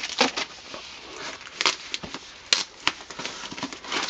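Tissue-paper wrapping rustling and crinkling as hands pull it apart, with a handful of sharper crackles at irregular moments.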